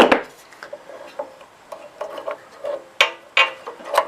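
Hand tools and small metal parts clicking, knocking and scraping against the engine while the grounding cable is worked off the ignition coil, with a sharp click at the start and a few louder knocks about three seconds in.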